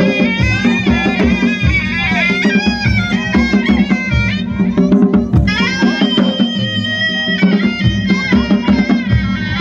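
Ladakhi folk dance music: a reedy wind instrument playing a melody over a steady drone, with a regular drum beat.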